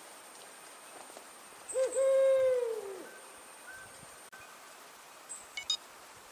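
Brown wood owl giving one hoot about two seconds in: a short note running straight into a longer held note that falls away at the end.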